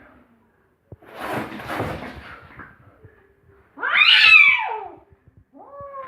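Domestic cat vocalising: a rough, noisy call about a second in, then a loud meow that falls in pitch about four seconds in, and another meow starting just before the end.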